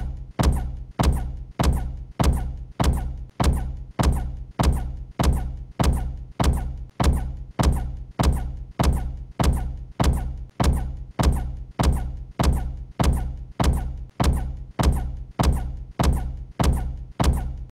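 A deep, booming impact sound effect repeated in a steady rhythm about twice a second, each hit starting with a sharp crack and dying away quickly. It cuts off suddenly at the end.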